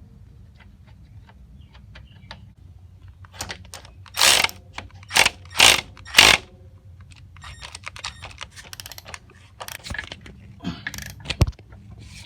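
Small metal clicks and rattles from hand tools and a hose connector fitting being threaded into a lawn mower's oil drain port. Four loud, short scraping noises come a few seconds in.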